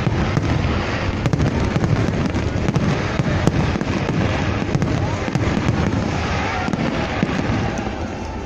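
Fireworks display: a dense, continuous barrage of bangs and crackles that eases slightly near the end.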